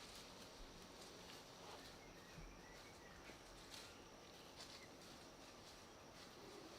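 Near silence: faint outdoor ambience with a few faint clicks.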